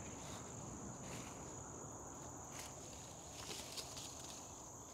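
A steady high insect trill, with a few soft rustles and footsteps as someone moves through the garden vines.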